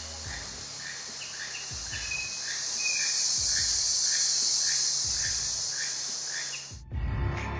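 Steady high-pitched chorus of insects, with a short chirp repeating about twice a second over it. It cuts off abruptly near the end, and music starts.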